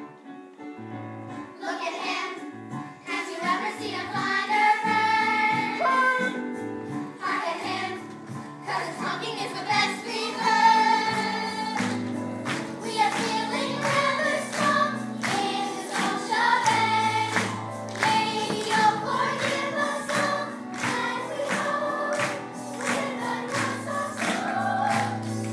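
A group of voices singing a musical-theatre song together over instrumental accompaniment. The singing comes in about a second and a half in, after a quieter instrumental lead-in.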